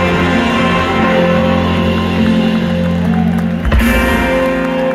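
Rock band playing live, electric guitar and bass holding a sustained closing chord, with one loud final hit about three and a half seconds in as the song ends.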